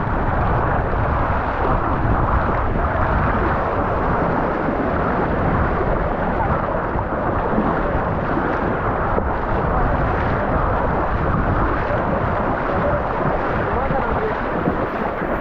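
Shallow surf churning and splashing around the legs of men wading through it, with waves rushing in, and wind buffeting the microphone. A steady, dense noise with no separate knocks or calls.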